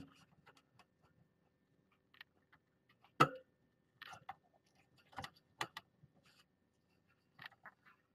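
Scattered light clicks and bumps from cats brushing against and knocking the camera, the loudest bump a little past three seconds in.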